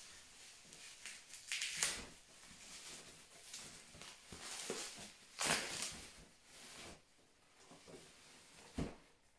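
Plastic bags and bubble wrap rustling and crinkling as boxed dolls are handled and lifted out of a cardboard packing box, in a few louder swells, with a short knock near the end.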